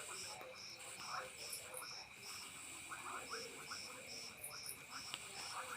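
Night chorus of crickets and frogs: a steady high insect trill, a short chirp repeating about two to three times a second, and scattered croaking frog calls.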